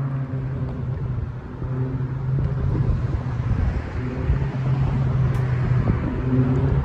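Honda S2000's four-cylinder engine heard through a custom single-exit exhaust, pulling at steady revs with a steady low drone that the owner dislikes at high RPM. The tone dips briefly twice, about a second and a half in and near the four-second mark.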